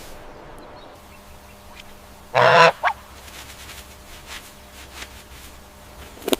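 A goose honking: one loud, harsh honk about two and a half seconds in, followed at once by a short second call, with a couple of brief sharp calls near the end.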